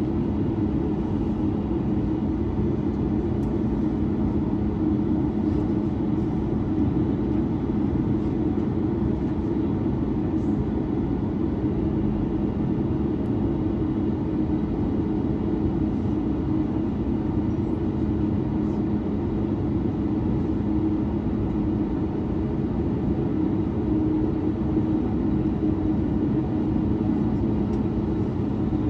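Steady engine drone heard inside the cabin of a Boeing 737-9 MAX, its CFM LEAP-1B engines running evenly with a low two-note hum over a rumble.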